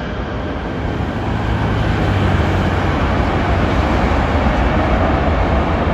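Jet noise from a landing Airbus A380-861 and its four Engine Alliance GP7200 engines: a loud, deep rumble that builds over the first couple of seconds and then holds steady.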